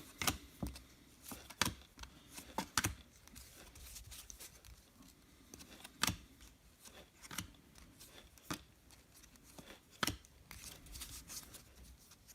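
Trading card packs and cards being handled: irregular crinkles, ticks and short tearing sounds from foil pack wrappers and card stock, the sharpest about six and ten seconds in.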